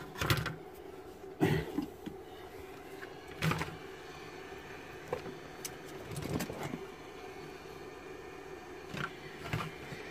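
A few scattered knocks and clatters as a laptop motherboard is shifted on the bench and a tool is picked up, over a steady low hum.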